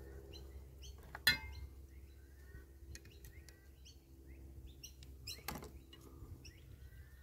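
Metal jaffle iron clinking as its long handles are unlatched and pulled apart. There is a sharp ringing clink about a second in, another about five and a half seconds in, and smaller clicks between. Birds chirp in the background.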